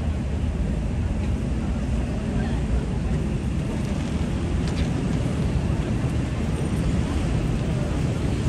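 Busy city street ambience: a steady low rumble of passing traffic with faint voices of people nearby.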